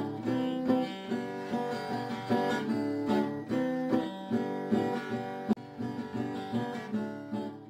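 Background music played on acoustic guitar, plucked notes in a steady rhythm.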